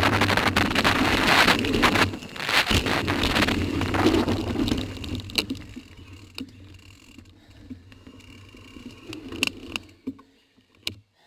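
Wind rushing over the bike-mounted camera's microphone together with mountain bike tyres on packed dirt and the bike rattling over jumps. About five seconds in the noise drops off sharply as the bike slows, leaving light scattered clicks and knocks, and the sound cuts off just before the end.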